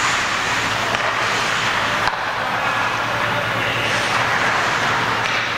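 Steady ice-rink noise during a hockey game, an even rushing din with a low steady hum under it, broken by one sharp knock about two seconds in.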